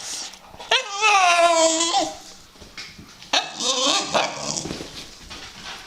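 A dog giving a long, high whining howl that falls in pitch, then a rougher, broken yowl about three seconds in.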